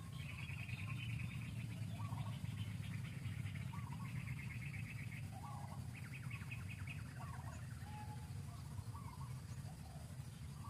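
Birds chirping in short calls that rise and fall in pitch, with a rapid pulsing trill for the first five seconds and again briefly about six seconds in, over a steady low rumble.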